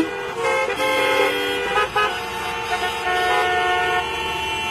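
Many car horns honking at once in traffic: several horns of different pitches overlapping in short and long blasts.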